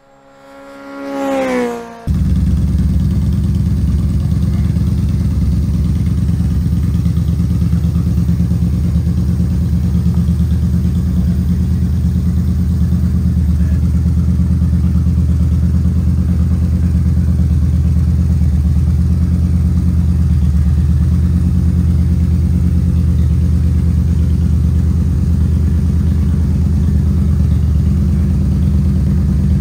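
2015 Yamaha Bolt R-Spec's air-cooled V-twin idling steadily. It comes in abruptly about two seconds in, after a short rising tone that swells and cuts off.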